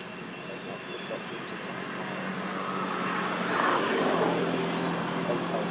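A steady engine drone with a low hum, swelling to its loudest a little under four seconds in and easing slightly after, like an engine passing at a distance.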